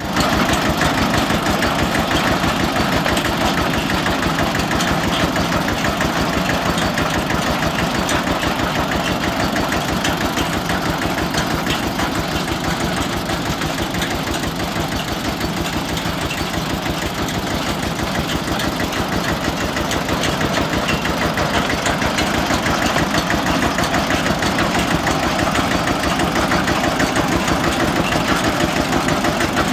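Single-cylinder diesel engine of a borewell drilling rig running steadily with a rapid, even pulsing beat, belt-driving the rig's mud pump and drill.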